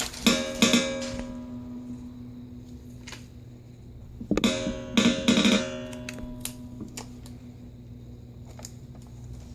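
Background music: guitar chords strummed and left to ring, with a pair of strums at the start and a cluster of three a little over four seconds in.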